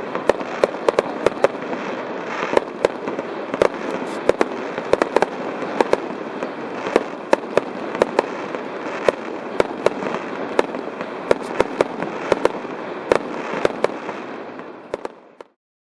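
Fireworks display: rapid sharp bangs, several a second, over a continuous dense din of bursting shells. It fades out and stops shortly before the end.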